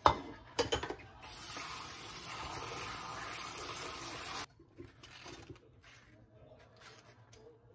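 Kitchen tap running onto a wooden bowl being rinsed in a stainless steel sink: a steady splashing that starts about a second in and cuts off suddenly after about three seconds. It follows a few knocks as the dishes are handled, and only faint small handling sounds come after.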